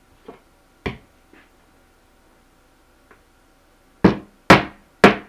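Hammer driving a nail through a beaver pelt into a 3/4-inch plywood beaver board: a few light taps and one sharper strike, then three hard blows about half a second apart near the end.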